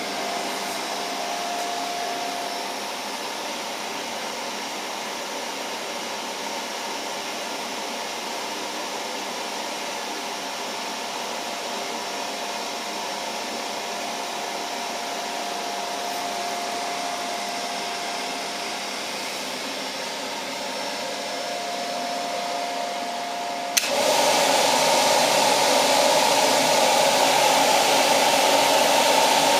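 Pellet burner's blower fan running steadily at minimum speed, with a faint whine that comes and goes. About 24 seconds in, after a click, it runs much louder at full power.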